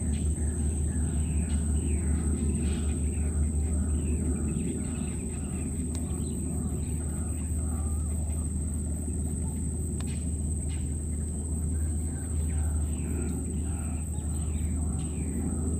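Outdoor natural ambience: a steady high-pitched insect drone with many short repeated chirps over a constant low rumble.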